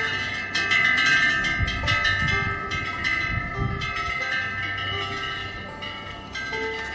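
Korean temple wind bells (pungyeong) on the eaves, swinging in the wind and striking again and again, several overlapping ringing tones sustaining between strikes, with wind rumbling on the microphone.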